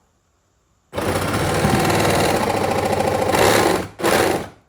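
Reciprocating saw starting its cut into a wooden 2x4 plate. It runs for about three seconds, stops briefly, then runs again in a short second burst.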